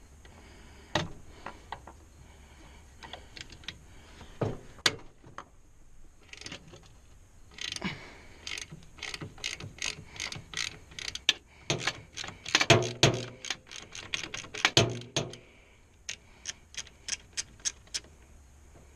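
Hand socket ratchet working a bolt loose: irregular runs of sharp clicks with louder metal knocks and scrapes in the middle, and an even run of about three clicks a second near the end.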